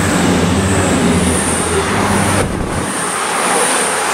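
CrossCountry Voyager diesel train passing through at speed: a steady rush of wheels on rail and air over a low engine hum. The hum drops away about two and a half seconds in, leaving the rush as the last coach goes by.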